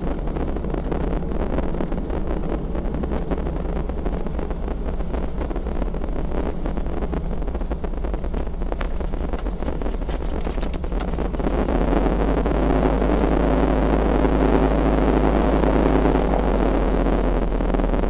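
Small propeller plane's engine and cabin noise heard from inside the cabin as it rolls down the runway after landing: a steady drone that grows louder about eleven seconds in.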